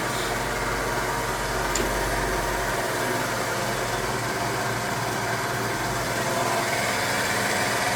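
Pacific three-phase universal milling machine running steadily, its power feed driving the table along the X axis.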